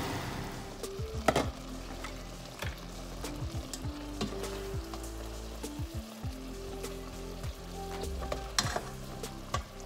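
Stir-fried okra sizzling in a wok while a silicone spatula scoops it out onto a plate, with scattered clicks and scrapes of the utensil against the pan and plate.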